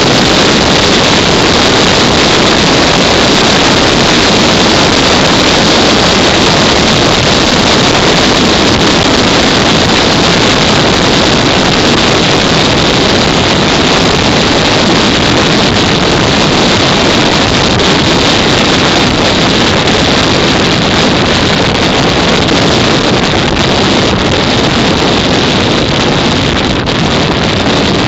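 Loud, steady rush of wind on the microphone with a vehicle running underneath, unchanging throughout, as when recording from a moving vehicle.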